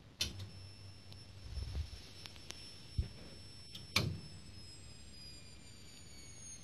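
Faint, high-pitched whine from a Panasonic CRT TV's switch-mode power supply as it tries to start, with a click near the start and another about four seconds in, after which the whine slowly falls in pitch. The supply is struggling against an overload, most likely from a shorted or dead component on its output.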